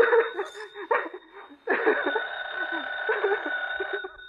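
A man laughing in a 1950s radio drama recording, in two bouts with a short pause between.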